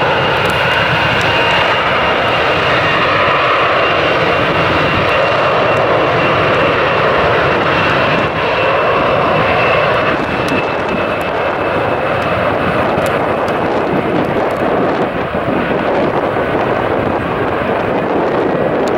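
Jet engines of an Airbus A320-family airliner at takeoff thrust. A steady roar carries a high whine as the aircraft starts its takeoff roll.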